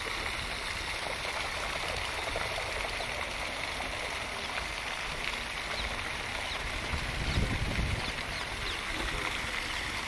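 Steady rush of a fountain's falling water, with a brief low rumble about seven seconds in.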